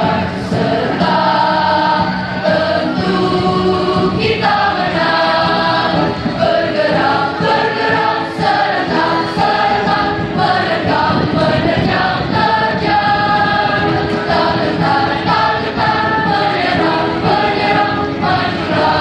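A choir singing, many voices together in long held notes.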